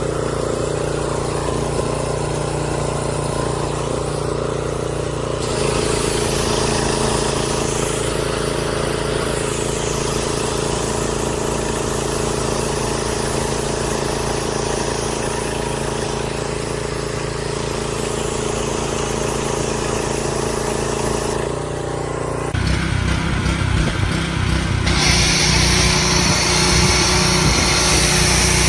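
Pressure washer running steadily with a motor drone. Its sound changes about 22 seconds in and turns louder and hissier near 25 seconds, as the water spray takes over.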